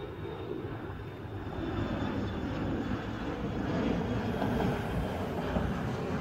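Twin rear-engined regional jet climbing out after takeoff, its engine noise a steady rush that grows louder over the few seconds.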